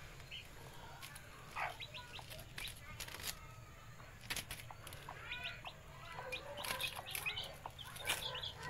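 Poultry chirping and peeping in short, scattered calls, with occasional sharp clicks and scuffs over a steady low hum.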